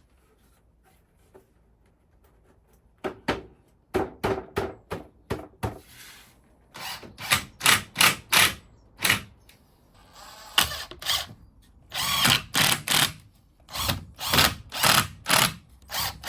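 A small power drill run in short, repeated bursts, two or three a second with a few longer runs, boring a hole. It starts about three seconds in.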